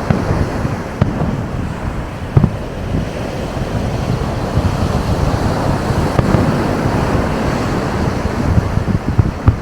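Wind buffeting the microphone over breaking surf, with a few sharp firework bangs. The loudest bang comes about two and a half seconds in.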